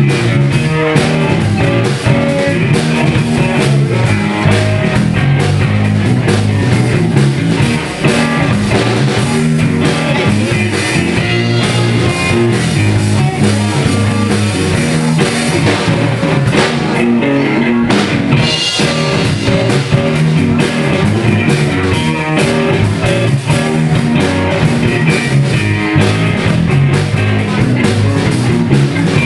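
A live rock band playing loudly: amplified electric guitar over a drum kit, with a steady, unbroken beat.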